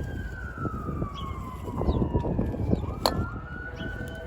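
Emergency vehicle siren wailing in the distance: one slow tone that falls steadily in pitch, then swings back up about three seconds in and holds high. It sits over a steady low rumble of background noise, and there is a single sharp click near the upswing.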